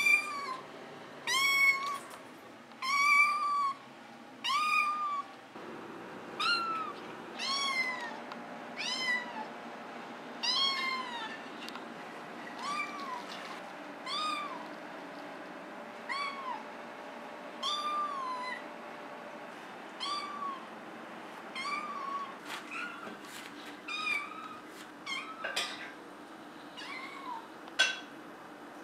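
Maine Coon kitten meowing over and over, short high-pitched meows coming about once a second, each rising then falling in pitch.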